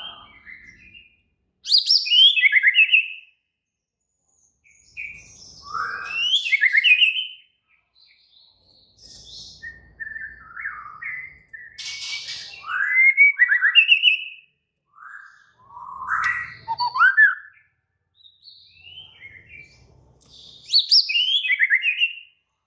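White-rumped shama singing: about six loud bursts of rapid, varied whistled and chattering phrases with brief silences between them. It is the agitated, fighting-mood song of a male.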